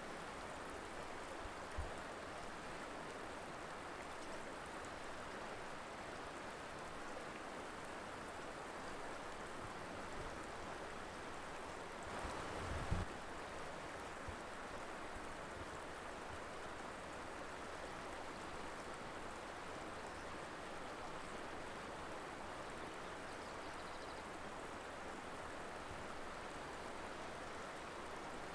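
Mountain river flowing steadily, an even rushing of water. A brief low thump comes about two seconds in, and a stronger low bump about thirteen seconds in.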